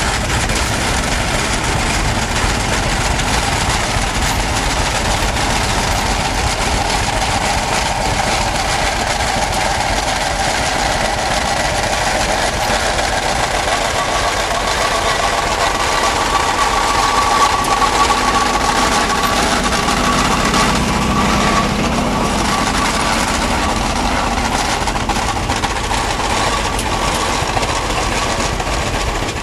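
Aultman-Taylor gas tractor engine running steadily.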